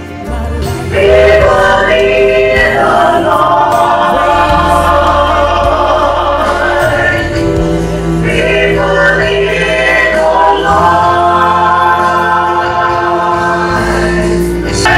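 Gospel choir singing with instrumental backing and a steady bass line, getting louder about a second in.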